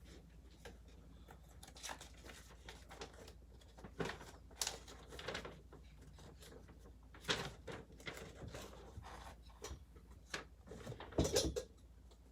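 Computer parts and their packaging being handled: scattered clicks, knocks and rustles, with the loudest cluster near the end.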